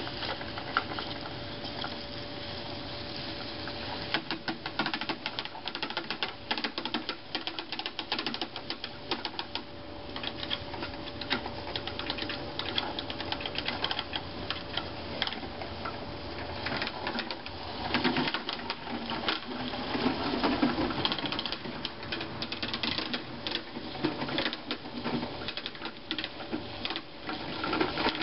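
Small green push broadcast spreader ticking and rattling rapidly as it is wheeled over loose dirt, its spinner scattering grass seed. The ticking grows louder about two-thirds of the way through.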